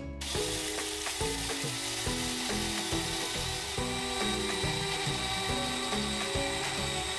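Electric blade coffee grinder running steadily, grinding dried eggshells into fine powder; a thin higher whine joins about halfway through. Soft background music underneath.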